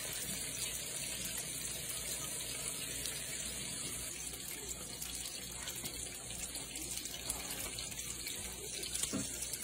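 Flour-and-meal-coated bass fillets sizzling steadily in hot oil in a skillet.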